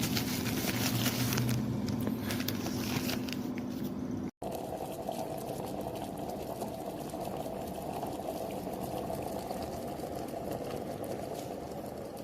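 Water heating and boiling in a folding silicone electric travel kettle: a steady rushing noise. It cuts out for an instant about four seconds in, then continues more evenly.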